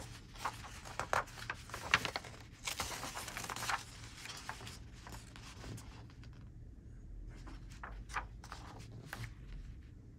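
Paper pages of a stapled instruction booklet being turned and handled. There is rustling and soft taps of paper, with a longer rustle about three seconds in, then only occasional light ticks.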